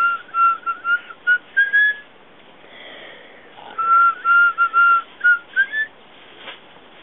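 A person whistling a short tune: a run of quick notes on one pitch that climbs at the end, whistled twice with a pause between.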